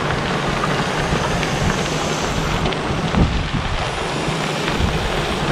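Bicycle tyres crunching over a gravel road as a large group of riders passes, a steady dense rushing noise with scattered small clicks of stones, with wind buffeting the microphone.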